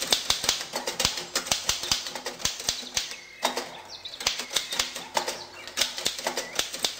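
Typewriter keys clacking in quick, irregular runs, with a brief pause about three seconds in.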